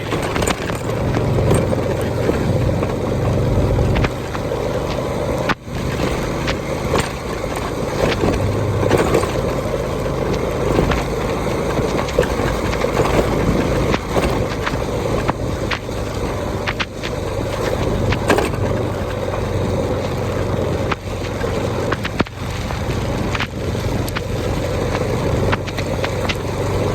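Motorbike riding over a rough, wet road in heavy rain: steady engine and road noise with wind and rain on the microphone, broken by frequent knocks and rattles from bumps.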